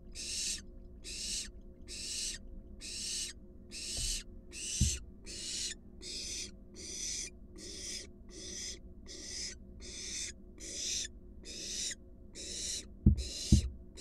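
Barn owl fledgling's food-begging call: a hiss repeated about three times every two seconds. Two loud thumps come about a second before the end.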